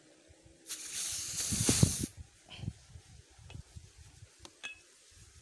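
Compressed air hissing out of the airgun's air-charging fitting for about a second and a half, starting abruptly, with knocks from handling the gun. A few light clicks and knocks of handling follow.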